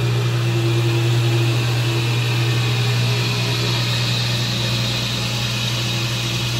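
Sampson SC-12 chop saw's 3 hp three-phase motor and 12-inch blade running steadily at full speed and spinning free, not cutting: a strong low hum under an even whirring hiss.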